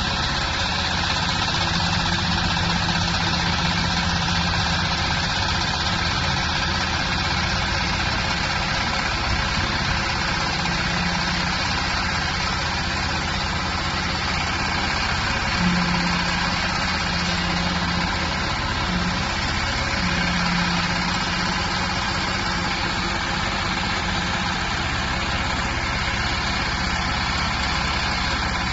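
Hydraulic silage baler running steadily, its motor and hydraulic pump giving a continuous machine drone, with a low hum that comes and goes several times.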